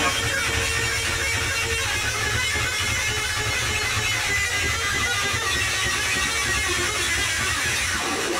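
Live noise rock: a distorted electric bass guitar played over a drum kit, a dense steady wall of sound with a few held notes.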